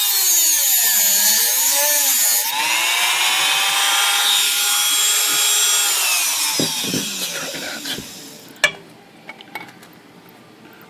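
Dremel rotary tool with a cut-off disc grinding a new screwdriver slot into a stripped typewriter set screw. Its high whine dips and recovers as the disc bites, then winds down and stops about eight seconds in. A sharp click and a few light ticks follow.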